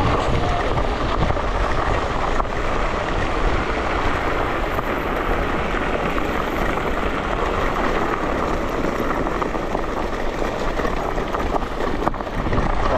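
Steady wind rush over the microphone with a deep rumble from an electric scooter riding along, with no motor whine standing out.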